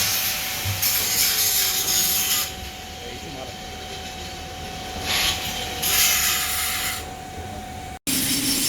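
TIG (argon) welding arc hissing in stretches of a second or two, with a steady high whine beneath that cuts off abruptly about eight seconds in.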